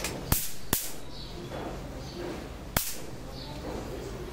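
Akari 103MSL electric mosquito racket zapping insects on its high-voltage mesh: sharp cracks as they touch the live grid. Three come in quick succession in the first second, and another comes about three seconds in.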